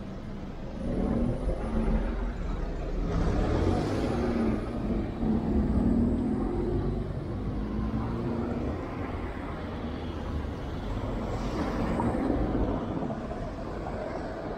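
Road traffic: cars driving past, engine and tyre noise swelling as they go by, loudest from about a second in until about seven seconds, with a low engine hum, and a smaller swell near the end.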